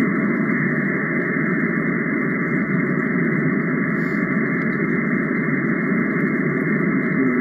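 Steady static hiss from a Xiegu G90 transceiver's speaker on a frequency where nobody is transmitting, confined to the radio's narrow voice band.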